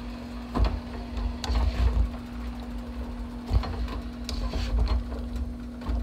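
Slotted spatula scraping and knocking against a large nonstick pan as a chicken and vegetable stir fry is tossed: irregular scrapes and dull knocks over a steady low hum.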